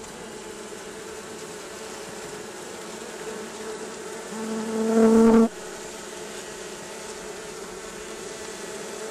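Honeybee colony buzzing steadily in an opened tree hive. One bee buzzes close to the microphone, growing louder about four seconds in and cutting off suddenly a second later.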